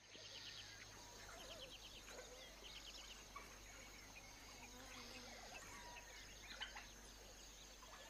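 Faint dawn ambience of the bush: many wild birds giving short chirps and trills over a steady, high-pitched insect drone.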